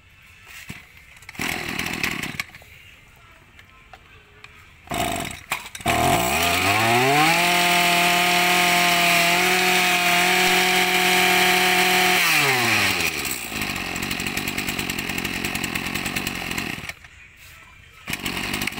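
Robin 26 cc two-stroke brush cutter engine, fitted with a sound-damped muffler, catching after two short bursts and then revved to high speed for about six seconds. It drops back to a steady idle, cuts out briefly, and runs again near the end. The tone is warm and very quiet for a trimmer.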